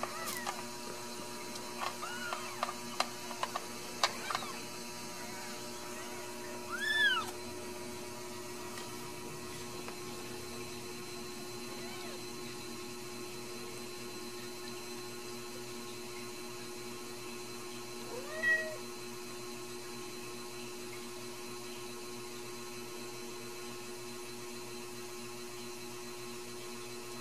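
Newborn Ragdoll kittens mewing: a few faint, thin squeaks and soft clicks in the first seconds, a clearer high mew about seven seconds in and another around eighteen seconds, over a steady low hum.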